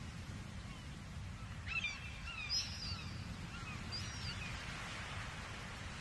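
Gulls calling: a cluster of short cries that glide up and down about two seconds in, and a few more around four seconds. Underneath is a steady low rumble of distant ocean surf.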